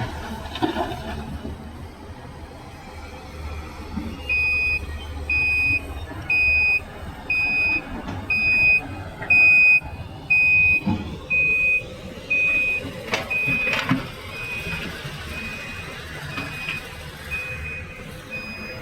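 Reversing alarm on a heavy mining vehicle beeping about once a second, starting about four seconds in, over the steady low rumble of its engine.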